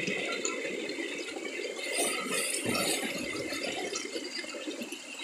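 Water splashing and sloshing as a person swims and wades in a shallow stream, louder for a moment about two to three seconds in.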